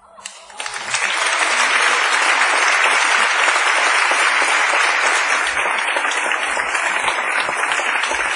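Audience applauding at the end of a song. The clapping starts right after the last sung note, swells to full within about a second and holds steady.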